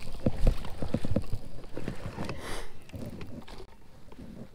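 Irregular knocks and taps on a kayak's hull, easing off about two seconds in.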